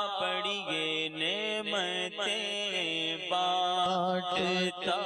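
Background music: a solo voice singing a slow Urdu devotional song in long held notes that bend in pitch.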